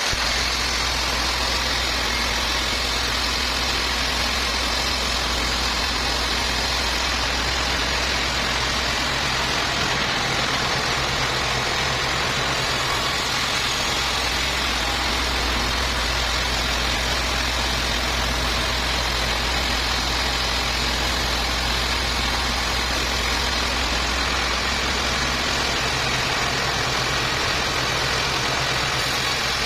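Sawmill machinery running steadily: a constant engine drone with a hiss over it.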